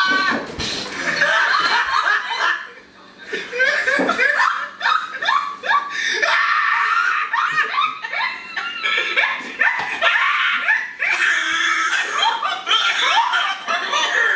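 Two men laughing hard in long, repeated fits of belly laughter and snickering, one laugh breathless enough to be teased as asthma.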